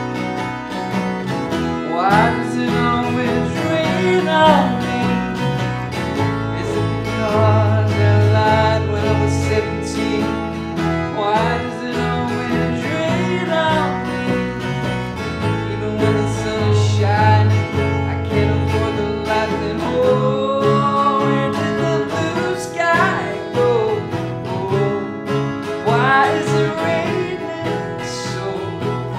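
Twelve-string acoustic guitar strummed together with an electric bass line, and a man singing over them.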